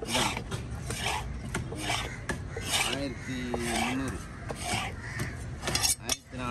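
Large fish-cutting knife scraping and chopping on a wooden log block and fish flesh, in a quick, irregular run of short scraping strokes.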